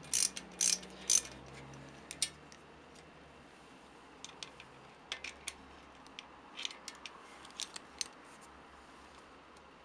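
Small metallic clicks and clinks of a hand tool and bolt as a piston oil-spray nozzle is being unbolted from an engine block: a quick run of clicks in the first two seconds, then scattered single clicks from about four to eight seconds in.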